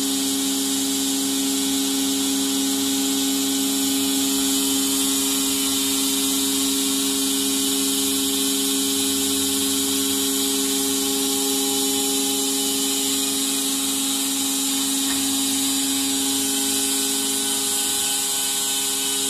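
Electric pump of an automatic-transmission pressure test bench running steadily: a constant mechanical hum with a high hiss over it.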